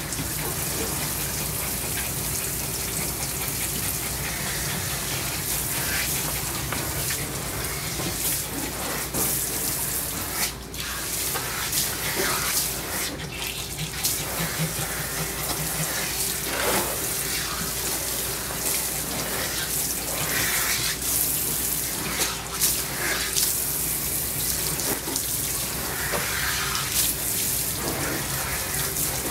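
Water spraying steadily from a hand-held bath sprayer onto a dog's wet coat and splashing into the grooming tub, with two brief dips in the flow around the middle.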